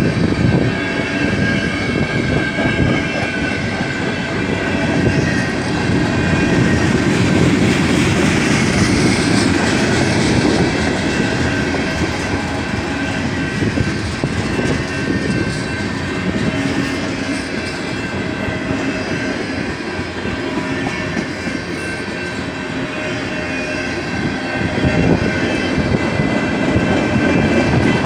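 Freight train cars, tank cars and a covered hopper, rolling past at close range: a continuous rumble and clatter of steel wheels on the rails.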